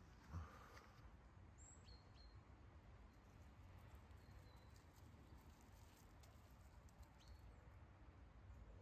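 Near silence, with a few faint, short, high bird chirps and a soft thump about a third of a second in.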